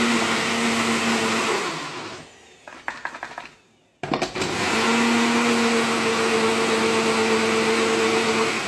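Swan personal blender blitzing gherkins, ketchup, mayonnaise and mustard into burger sauce in two pulses. The motor runs with a steady hum, spins down about two seconds in, a few light clicks follow, then it starts again sharply at about four seconds and runs until just before the end.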